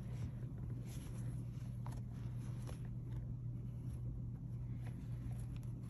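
Faint handling sounds of a sewing needle and thread being worked through a crocheted toy's yarn and a satin ribbon: soft scratches and light ticks, over a steady low hum.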